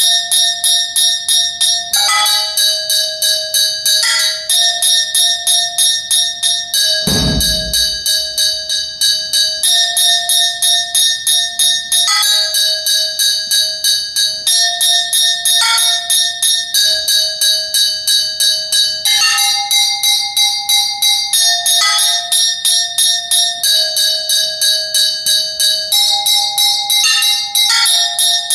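Solo multiple-percussion playing on ringing metal objects struck with sticks: a fast, steady stream of strokes, several a second, the ringing pitches changing every couple of seconds. A single low bass drum thud sounds about seven seconds in.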